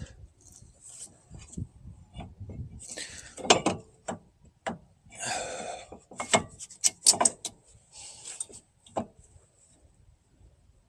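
Irregular clicks, knocks and scraping of metal parts and hand tools being handled while a brake caliper is refitted over a wheel hub. There is a longer rubbing scrape about five seconds in and a quick run of sharp clacks around seven seconds.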